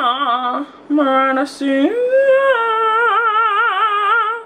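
A woman singing long held notes with a wide, wavering vibrato, breaking off briefly twice and gliding up to a higher note about two seconds in; the singing stops abruptly at the end.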